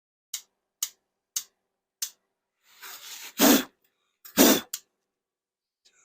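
Four quick strokes of sandpaper scraping between a motorcycle's ignition contact points, about half a second apart, cleaning the pitted contacts. Then two loud breathy bursts of air, like coughs or puffs of breath.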